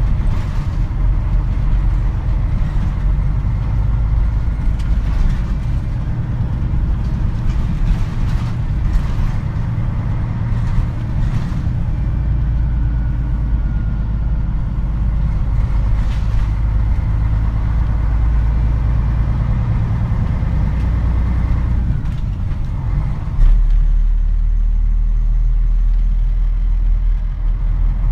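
Inside a Mitsubishi Fuso Aero Star (KC-MP747) city bus: diesel engine and drivetrain running with cabin rattles and clicks. A little before the end a brief loud thump comes, and the sound settles into a steadier, lower idle.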